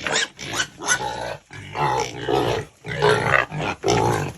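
Pigs grunting and squealing: a string of harsh, short calls, about seven in four seconds, with brief gaps between them.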